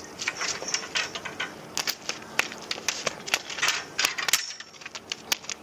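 Irregular sharp clicks and clattering taps, several a second and unevenly spaced: small hard objects being handled.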